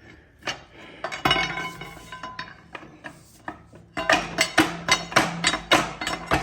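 Steel crowbar clinking and knocking against metal axle parts as a seized part of a GM 9.5 inch differential is worked loose: a few separate knocks, then from about four seconds in a quick run of metal taps, about four a second.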